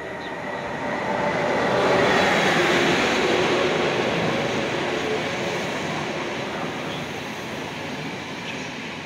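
Electric locomotive-hauled passenger train of blue-and-white České dráhy coaches running into a station platform. The rumble of the locomotive and wheels swells to its loudest about two seconds in, then eases as the coaches roll by, with a faint squeal running through it.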